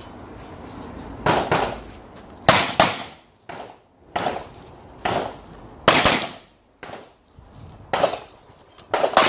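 Pistol shots fired in an IPSC course of fire: about a dozen sharp cracks in singles and quick pairs, spaced by short gaps as the shooter moves between positions.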